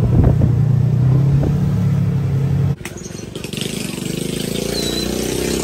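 A vehicle engine running with a steady low hum, then, after a sudden cut about three seconds in, a quieter engine whose pitch rises.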